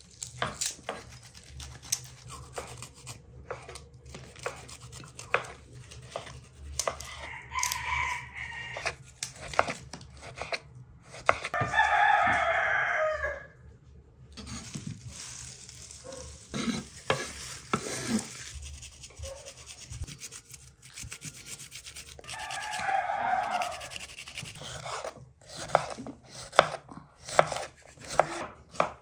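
A rooster crows several times, loudest near the middle. Over it come short clicks and scrapes of small knives on garlic cloves and a wooden cutting board.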